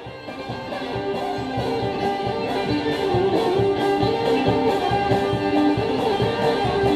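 Old-time string band music fading in over the first few seconds: a banjo picking and a fiddle playing held, wavering notes over a steady beat.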